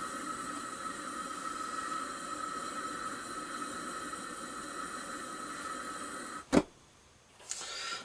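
Gas camp stove burner hissing steadily under a camp stove toaster, with a faint high whistle in the hiss; about six and a half seconds in there is a sharp click and the hiss stops.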